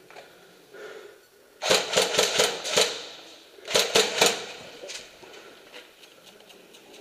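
Airsoft guns firing two quick strings of shots: about six or seven in just over a second, then, after a short pause, about four more.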